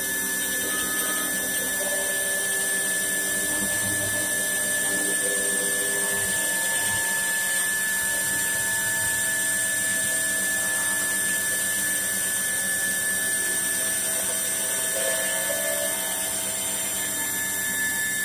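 CNC stone-carving router spindle running at high speed with a steady high-pitched whine as a fine carving bit cuts into a wet white stone slab.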